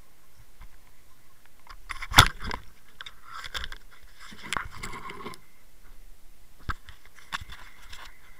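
Knocks, clicks and scraping of gear being handled in a small boat, with a sharp knock about two seconds in the loudest, and further clatters near the middle and toward the end.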